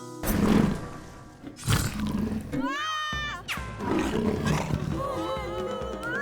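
A cartoon dragon's roar comes as a loud blast within the first second, with a second, shorter blast about a second later, over playful cartoon music. A rising whistle-like glide follows, then the music carries on.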